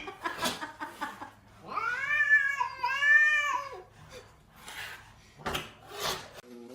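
A cat yowling: two long, drawn-out meows one right after the other, about two seconds in, followed by a few short noisy sounds.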